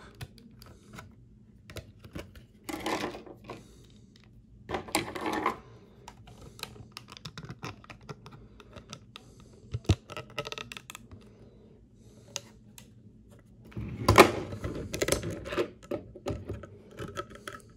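Small plastic and die-cast action-figure parts clicking, tapping and rattling as they are pulled off and snapped on by hand. The clicks come in scattered clusters, with a louder burst of handling about fourteen seconds in.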